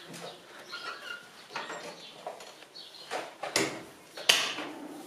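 Footsteps and knocks on an open wooden staircase as a child climbs it holding the railing. There are a few light knocks, then two louder thumps about three and a half and four seconds in.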